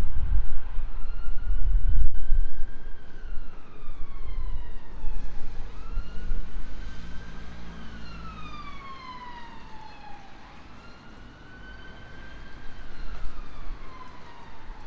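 Emergency vehicle siren wailing, its pitch sweeping slowly up and down in long rises and falls. Underneath is a low rumble, loudest in the first few seconds and then fading.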